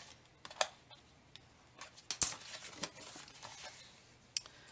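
Cardstock being handled and slid into place on a plastic envelope punch board, with a few sharp clicks and taps, the loudest a little over two seconds in.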